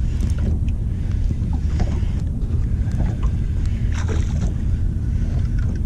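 Steady low wind rumble on the camera microphone in a small drifting boat, with faint scattered ticks as a spinning reel is wound in against a heavy hooked fish.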